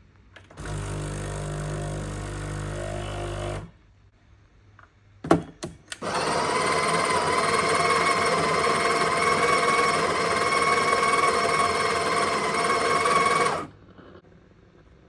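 Sage espresso machine running in two spells: a low hum for about three seconds, then a few sharp knocks, then a louder whirring run of about seven and a half seconds that stops abruptly.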